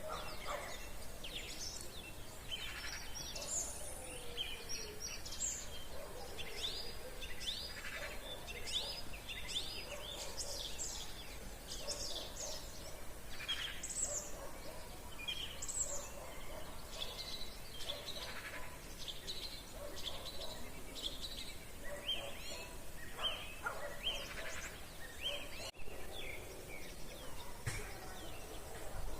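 A chorus of many songbirds at evening, dense overlapping chirps, trills and whistles with no pause, over a faint steady outdoor background.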